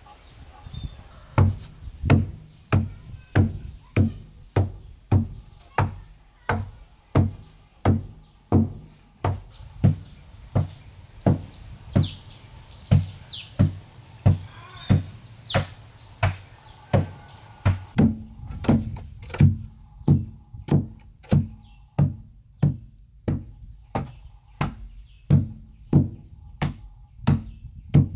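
A homemade hand tamper, a heavy flat base on three wooden poles, pounding sand fill to compact it for a floor: a steady run of dull thuds, about three every two seconds.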